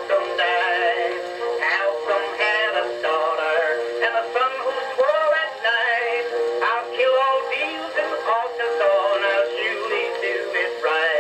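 Edison Blue Amberol cylinder recording playing: a male voice sings over orchestra accompaniment, with the thin, bass-less, boxy sound of an acoustic-era recording.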